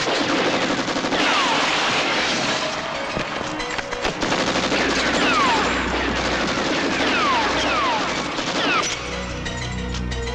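Rapid film-soundtrack gunfire, dense strings of shots, with several quick falling whistles over music.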